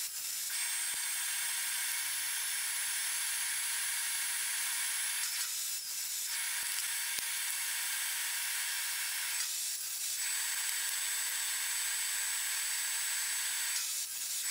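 Table saw running through a batch of half-lap cheek cuts, heard as a steady hiss with a faint high whine. It dips briefly three times, about every four seconds.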